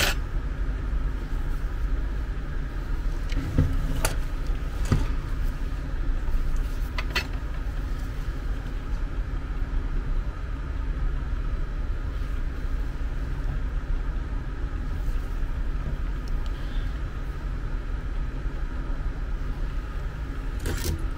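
A steady background hum, with a few light clicks and taps from handling the wires with tweezers, the sharpest right at the start.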